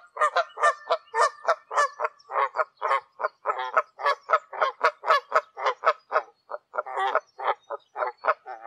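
Canada geese honking in a rapid, unbroken series of short honks, about four a second.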